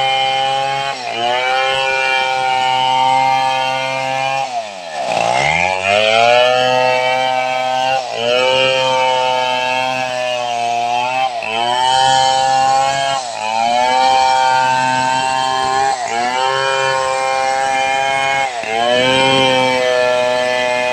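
Stihl 070 two-stroke chainsaw cutting through a log. Its engine pitch dips and climbs back every second or two, with one deep drop and recovery about five seconds in.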